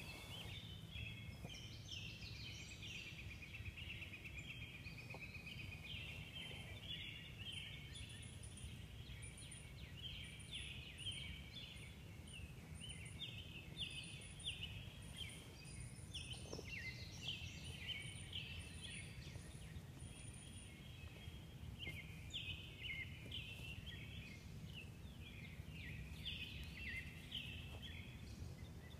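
Birds chirping and singing, with many short overlapping calls over a faint, steady low rumble.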